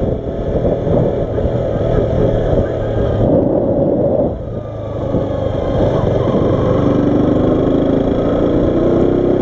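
KTM RC 125's single-cylinder four-stroke engine running as the motorcycle rides along at low speed. The engine note drops briefly about four and a half seconds in, then holds steady again.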